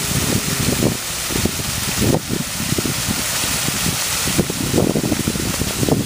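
Water rushing and splashing beneath a frozen waterfall into the open pool at its base, a steady hiss, with gusts of wind buffeting the microphone in low, uneven rumbles.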